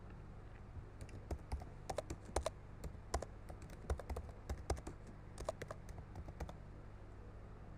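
Typing on a computer keyboard: a quick, irregular run of key clicks that starts about a second in and stops a little before the end.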